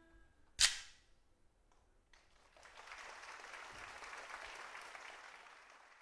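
A single sharp wooden clack, the bak clapper closing the court dance music, just after the last notes die away. About two seconds in, audience applause rises, holds, and tapers off.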